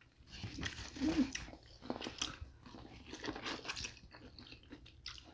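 Close-miked biting and chewing of sauce-coated corn on the cob: a string of irregular crunches and wet smacks, loudest between about one and two and a half seconds in.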